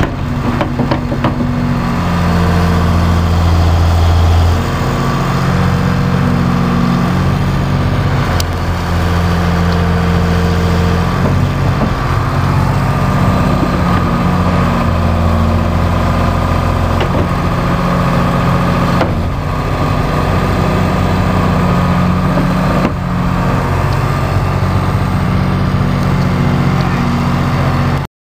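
John Deere 690B excavator's turbo diesel engine running loud while the boom and bucket dig, its low note swelling and easing every few seconds as the work loads it. The sound cuts off abruptly near the end.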